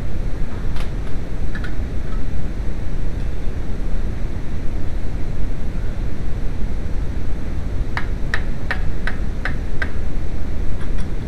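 Steady low rumble and hiss of workshop and handling noise, with a quick run of about seven sharp metallic taps, roughly three a second, a little after two-thirds of the way in.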